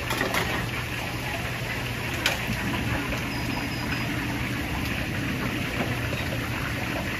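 Steady rushing hiss of a street-food stall at work, over a low steady hum, with a couple of sharp clicks near the start and about two seconds in.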